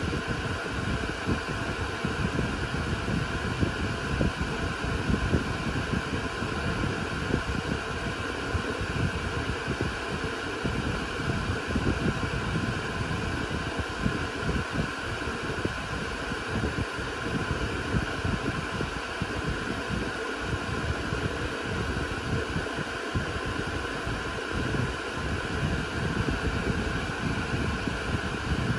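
Cooling fans of a Dell Compellent SCV2020 storage array running steadily: an even whir with several steady high tones over a fluctuating low rumble.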